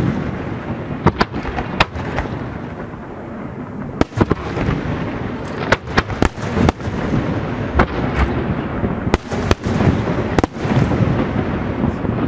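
Aerial fireworks shells bursting in quick succession: a dozen or so sharp bangs, often a second or less apart, over a steady rumble of overlapping reports.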